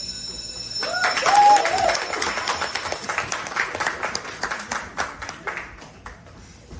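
Audience applauding, with a few short cheers or whoops about a second in; the clapping thins out and fades near the end. A brief high steady tone sounds just before the clapping begins.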